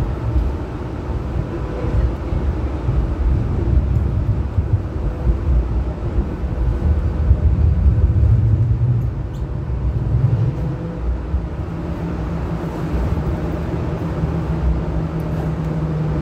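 Hong Kong Light Rail Phase I light rail car running along the track, heard from inside the car: a constant low rumble of wheels and running gear, joined about two-thirds of the way through by a steady low hum.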